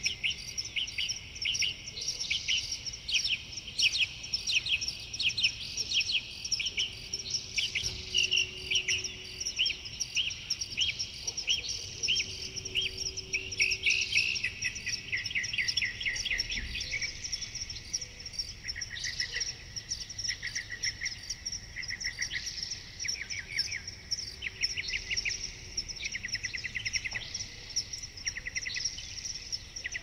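Forest birdsong: several birds chirping and trilling in quick repeated notes, overlapping all through, over a steady high-pitched background hiss.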